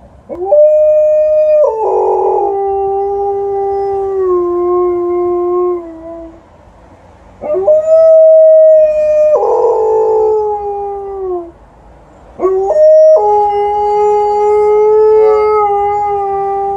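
Alaskan Malamute howling, set off by a passing ambulance: three long howls with short pauses between. Each starts on a higher note, breaks roughly down to a lower one, and holds it, sagging slightly at the end.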